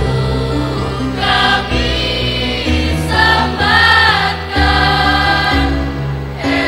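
Mixed choir of girls' and boys' voices singing in harmony into microphones, holding long notes that change together every second or so.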